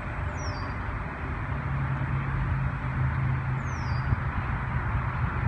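Distant diesel freight locomotive approaching, heard as a low steady rumble under a rushing background noise. Two short bird chirps falling in pitch sound, one about half a second in and one about three and a half seconds in.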